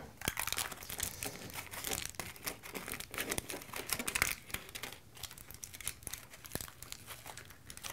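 Aluminium foil being crinkled and crimped by hand into a small boat shape: irregular crackling in bursts, busier in the first half and sparser near the end.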